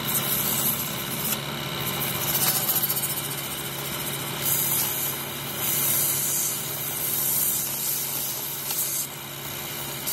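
Lathe running with a steady hum while emery cloth is held against the spinning metal gear hub, a hissing rub that swells and fades in long stretches and eases off near the end.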